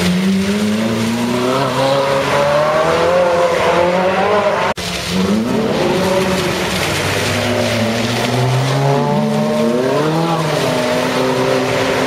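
Ferrari 458 Italia V8 engines revving as the cars accelerate past one after another, their pitch climbing and falling with each pull. The sound breaks off for a moment about five seconds in.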